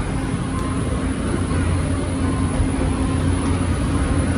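Steady hum and low rumble of an airliner's air systems at the boarding door, with one constant droning tone underneath.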